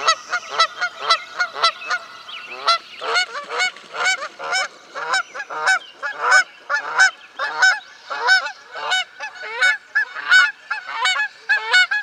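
Canada geese honking: a long, quick run of honks, two or three a second, some overlapping.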